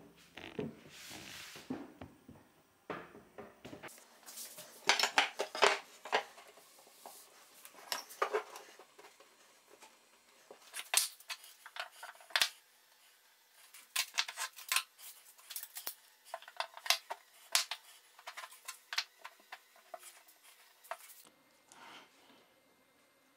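Cut wooden boards being handled and laid out on a worktable: irregular clusters of sharp knocks and clatters of wood on wood and on the tabletop, with quieter shuffling between.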